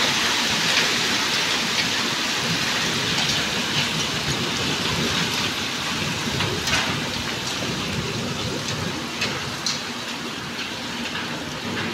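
Hailstorm: hail and rain falling steadily on hard ground, with scattered sharp ticks of hailstones striking surfaces.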